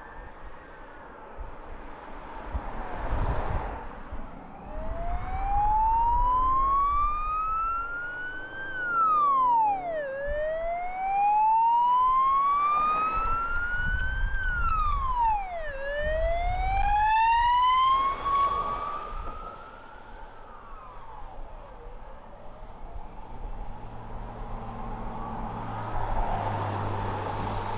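Ambulance siren on a slow wail, each tone rising for about four seconds and then dropping sharply, over the road noise of emergency vehicles driving past. The siren dies away after about twenty seconds, leaving a low engine hum.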